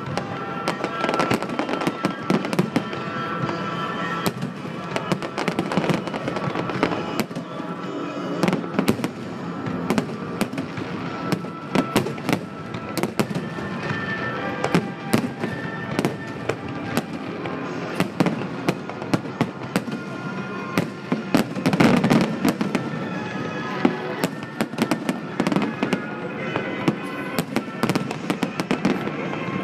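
Aerial fireworks shells bursting in a rapid, continuous barrage of bangs and crackles, heaviest about three quarters of the way through, with music playing underneath.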